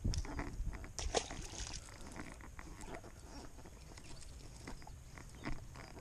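Faint scattered clicks and rustles of handling, with a sharper click about a second in, over a low rumble.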